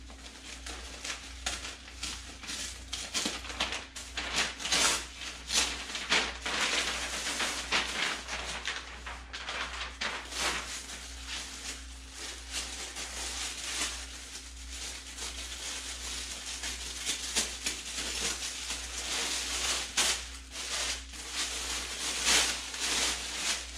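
Wrapping paper and a plastic bag crinkling and rustling in irregular bursts as a parcel is unwrapped by hand, over a steady low hum.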